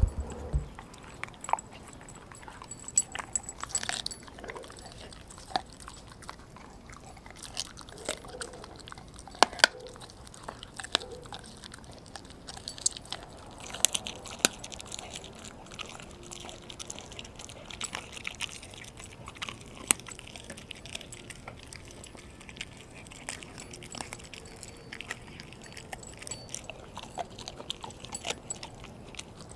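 Dog chewing raw meat and organs with its mouth open: irregular wet smacks and crunching clicks.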